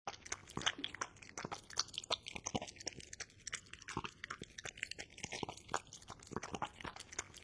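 Cat chewing crunchy food close to the microphone: a quick, irregular run of small crunches and clicks.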